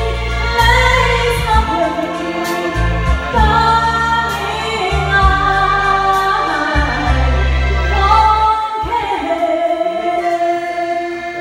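A woman singing a slow song into a handheld microphone, holding long notes, over a backing track with bass and light percussion. The bass drops out about nine seconds in.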